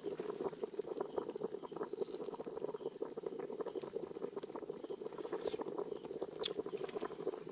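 Pot of soup boiling steadily over an open wood fire, with crickets chirping in the background.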